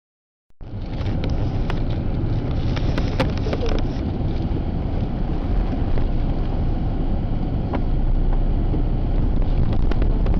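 Car driving at road speed, a steady engine and tyre rumble heard from inside the cabin, starting abruptly about half a second in, with a few faint ticks and knocks.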